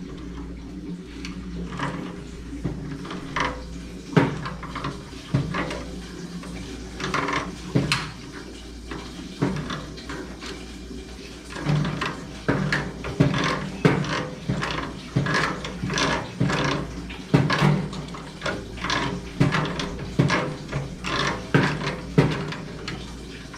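Metal clicks and knocks of a wrench working the union nut above the circulation pump of a Lochinvar Shield commercial water heater as it is loosened, coming faster, about two a second, in the second half. A steady low hum runs underneath.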